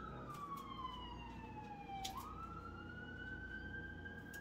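Emergency vehicle siren wailing: a single tone slides slowly down in pitch, sweeps quickly back up about two seconds in, and holds high.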